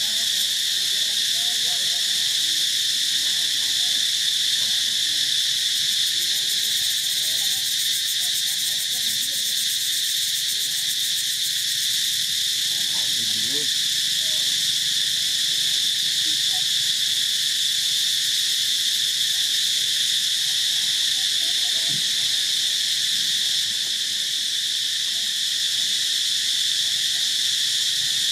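A steady, dense chorus of insects: a high-pitched drone that holds without a break.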